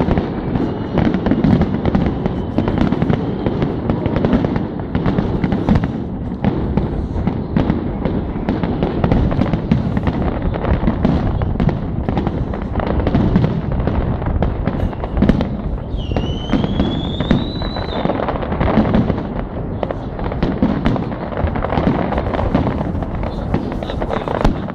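New Year fireworks: a dense, continuous barrage of bangs and crackling. About two-thirds of the way through, a rising whistle sounds for about two seconds.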